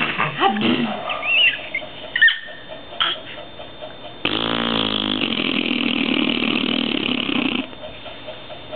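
A person making noises with the mouth: a few short sputtering sounds, then one long drawn-out mouth noise lasting about three seconds.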